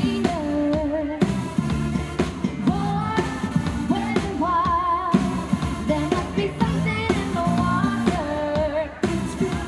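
A live pop band playing, with a woman singing lead over keyboards and a steady dance beat; about halfway through she holds a wavering note.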